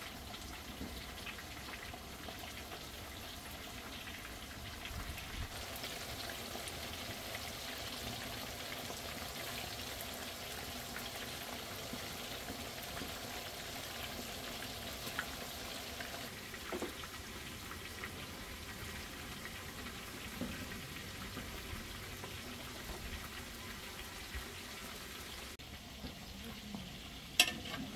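Pieces of chicken frying in hot oil: a steady sizzle with scattered small pops, and one sharp knock near the end.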